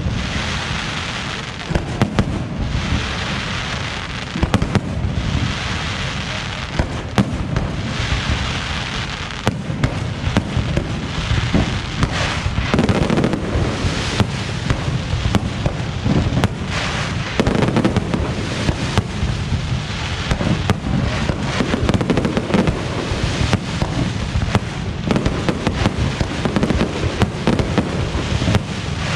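Aerial fireworks display: a continuous barrage of shell bursts and bangs over a dense layer of crackling and hissing, coming in waves every couple of seconds.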